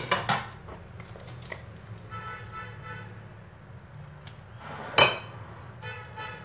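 Glass dishes and a bottle knocked and set down on a kitchen counter: a clink at the start and one loud knock about five seconds in. A faint steady pitched tone sounds twice in the background.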